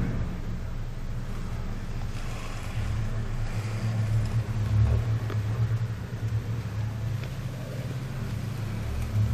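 Steady low mechanical hum, with a rumble that swells about three to five seconds in and again near the end.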